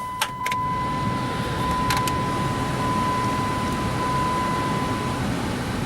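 Heater controls clicking a few times, then the heater blower fan running with a steady rush, under a steady high tone that stops about five seconds in.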